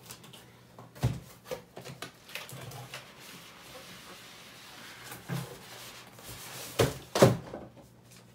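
Large cardboard monitor box being handled and set down on the floor: a thud about a second in, scattered knocks and some scraping, then two louder thumps near the end.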